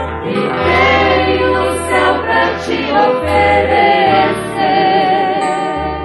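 A Christian hymn: voices singing with vibrato over held bass notes that change every second or two.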